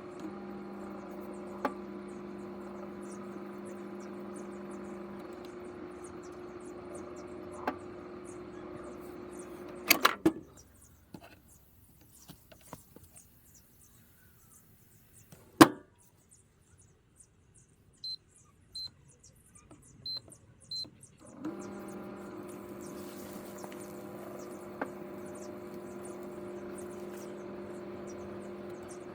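Microwave oven running with a steady hum, cutting off about a third of the way in with a clatter. After a few quiet seconds comes a single sharp click, then four short high beeps, and the oven starts humming again about two-thirds of the way in.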